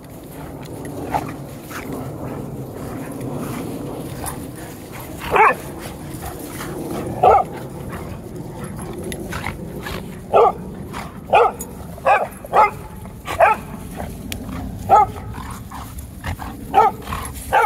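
Dogs barking during rough play: about ten short barks, a couple spaced out early and then coming about once a second from roughly ten seconds in, over a steady low background noise.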